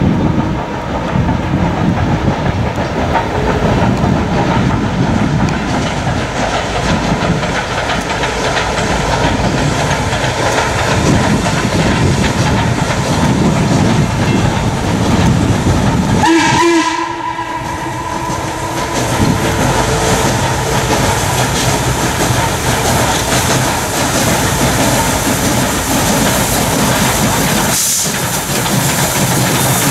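C&O #1309, a 2-6-6-2 Mallet steam locomotive, working hard with a passenger train, its exhaust loud and steady. Its steam whistle sounds briefly about a second in and again about halfway through.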